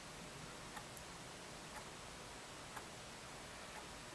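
Faint ticking of an analog quartz alarm clock, about one tick a second.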